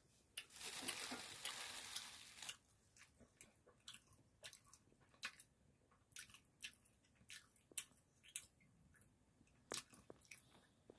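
Quiet close-miked chewing of a spicy sundae (Korean blood sausage) skewer, with short wet mouth clicks and smacks scattered irregularly. A dense rustle lasting about two seconds comes near the start.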